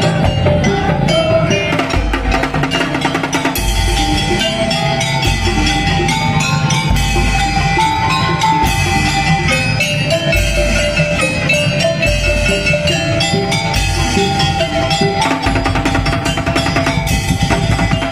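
Madurese daul (tong-tong) ensemble playing: loud percussion music of low drum beats and rapid wooden strikes under a sustained melody line.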